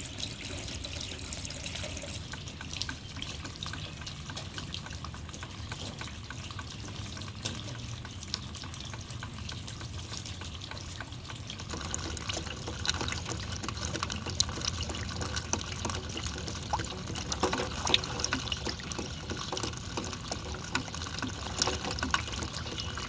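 Rain dripping and splashing into puddles: a steady wash of water with many small drop ticks, growing denser and slightly louder about halfway through.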